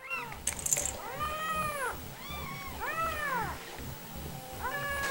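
Domestic cat meowing repeatedly, about five meows that each rise and fall in pitch, with a short rustle about half a second in.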